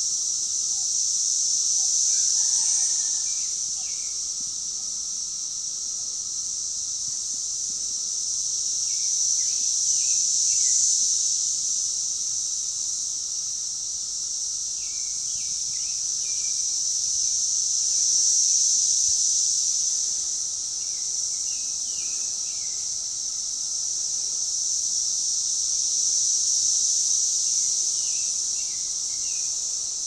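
Chorus of Brood X periodical cicadas: a continuous high-pitched buzzing drone that swells and fades in slow waves about every eight seconds.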